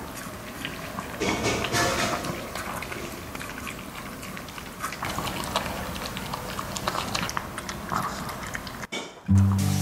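Maltese dog eating wet dried-pollock soup from a stainless steel bowl: a steady run of small wet clicks and smacks of lapping and chewing. Near the end the sound drops out briefly and background music with held notes begins.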